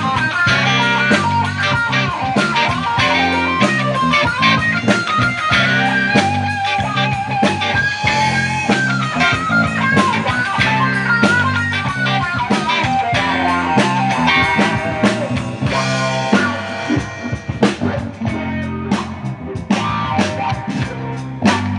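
Live band playing an instrumental passage: an electric guitar lead line over bass guitar and drum kit. The guitar melody drops back about two-thirds of the way through, leaving the drums more prominent.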